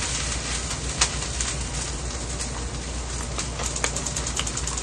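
Someone chewing a bite of latiao, a chewy spicy gluten-strip snack, with a few soft mouth clicks over a steady hiss.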